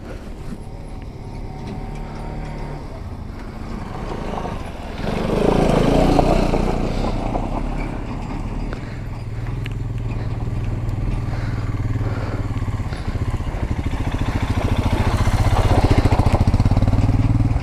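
Motorcycle engines running on a dirt trail. A steady low engine note grows louder toward the end as a bike comes closer, with a brief loud rush of noise about five seconds in.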